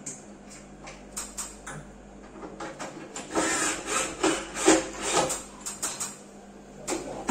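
Wooden cabinet panels knocking and scraping as the wall cabinet is handled and worked on. A few light knocks come first, then a run of four or five louder scraping, rubbing strokes about halfway through.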